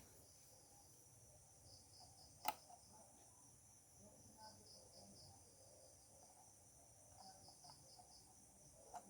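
Near silence with faint crickets chirping steadily in the background, and one sharp click about two and a half seconds in.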